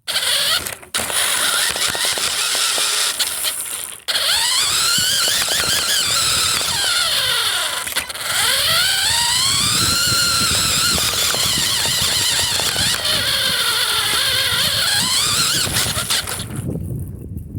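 Cheap toy RC car's motor and gears whining, pitch rising and falling again and again as the throttle is worked in the snow, with brief cut-outs about a second in, around four seconds and around eight seconds.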